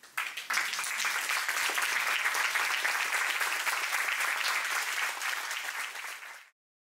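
Audience applauding, many hands clapping steadily, then cut off abruptly near the end.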